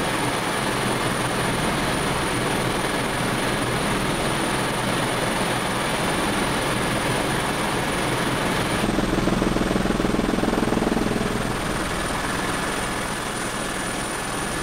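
Helicopter in flight heard from inside the cockpit: steady rotor and engine noise with a thin high whine over it. About nine seconds in, the sound shifts suddenly and grows louder and lower for a couple of seconds before settling again.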